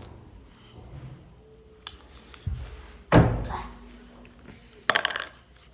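Handling noises at a table: a faint click about two seconds in, one loud thump a second later, and a short run of quick clicks and crackles near the end.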